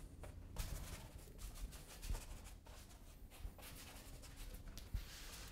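Faint scratchy brushing of a paintbrush working acrylic paint over damp canvas, in short irregular strokes.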